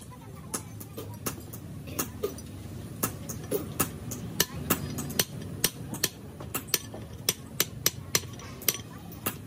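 A hammer striking metal: repeated sharp taps at uneven intervals, coming about two or three a second in the middle stretch, over a low steady hum.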